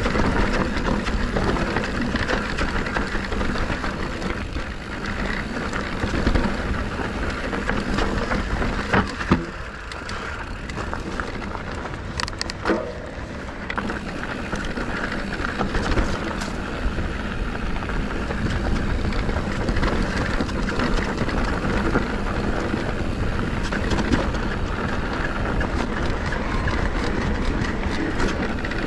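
YT Decoy MX electric mountain bike riding over rough dirt and rock: steady tyre and trail noise with rattling from the bike and wind on the microphone. A few sharp knocks stand out about a third of the way in, as the bike hits rocks.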